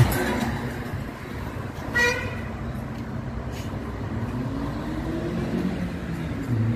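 Road traffic on a town street: a car swishes past close by right at the start, a vehicle horn gives one short toot about two seconds in, and then an engine rises in pitch as a vehicle accelerates.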